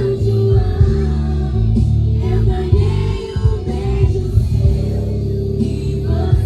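Quadrilha junina music playing loudly: a voice singing over a heavy, steady bass line.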